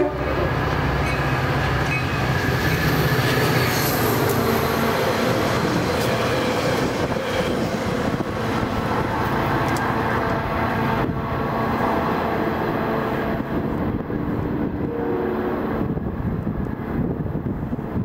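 Train noise: a diesel rail vehicle running, with rail and wheel noise, the upper hiss dropping away about eleven seconds in.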